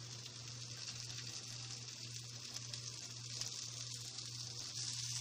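Green beans and garlic sizzling in butter in a nonstick frying pan: a soft, steady sizzle that grows a little louder toward the end, over a low steady hum.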